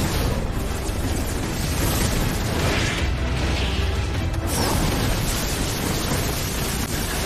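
Superhero-show action soundtrack: music under heavy rumbling and booming sound effects. From about four and a half seconds in, a brighter, hissing crackle joins in, the effect for speedsters' lightning trails.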